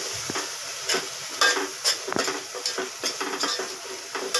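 A metal spoon scraping against a metal pot in repeated strokes as a thick tomato and onion masala is stirred, with the masala sizzling underneath.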